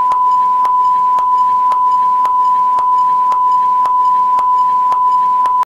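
A loud, steady single-pitched beep tone like a censor bleep, held throughout with a faint click about twice a second, and cut off abruptly near the end.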